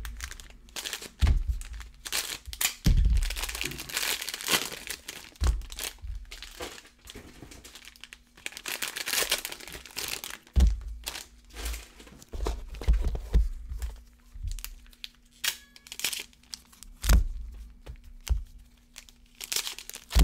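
Plastic wrap being torn and crumpled off Panini Prizm football card boxes, with foil card packs crinkling as they are handled. Several dull knocks as boxes and packs are set down on the table.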